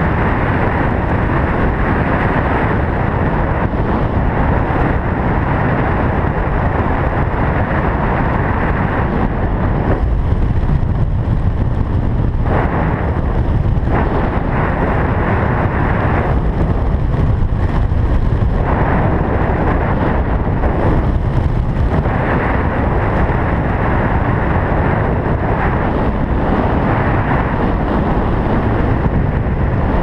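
Strong wind rushing over an action camera's microphone while descending under an open parachute canopy. The rush is loud and steady, heaviest in the low rumble, and its higher hiss dips and returns now and then.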